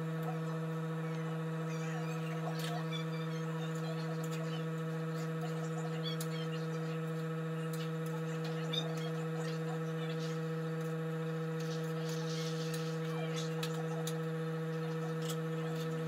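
Steady electrical buzzing hum at one low pitch with many overtones, unchanging throughout, with a few faint clinks of a utensil stirring in a cooking pan.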